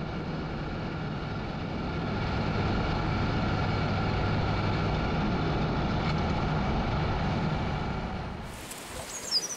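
Motorcycle engine and road noise heard from an onboard camera while riding at a steady pace, a little louder from about two seconds in. Near the end it cuts to a quieter outdoor background.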